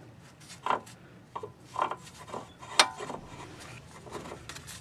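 Metal tie rod on a Toyota Prius being handled and turned by hand: about six short clunks and taps, the two loudest with a brief metallic ring, over light rubbing.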